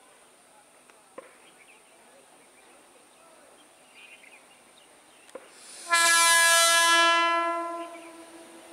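Horn of an approaching ICF-built electric multiple unit local train: one steady blast that starts suddenly about six seconds in, holds for about a second, then dies away over another second.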